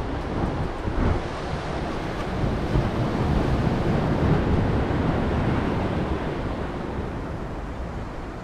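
Ocean surf rushing against the rocks, with wind buffeting the microphone; the wash swells about midway and eases off again.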